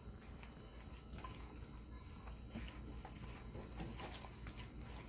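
Faint squishing and scraping of a hand mixing dry flour with water trickled in, in a stainless steel bowl, with scattered light clicks.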